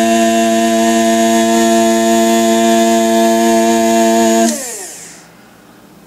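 Electric blade coffee grinder running with a loud, steady motor whine while grinding. About four and a half seconds in it is switched off and the whine falls away as the blade spins down.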